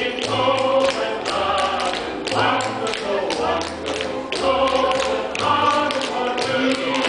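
Many pairs of tap shoes striking a wooden stage in quick, rhythmic unison, over a music track with a steady bass line.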